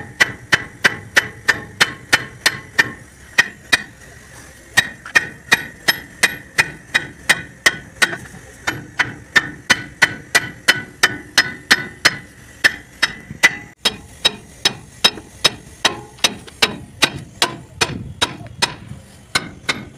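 Hand hammer beating on the steel of a Bharat Benz truck's lift-axle suspension while the axle bush is being replaced. Steady blows, about two and a half a second, each ringing, with a short pause about four seconds in.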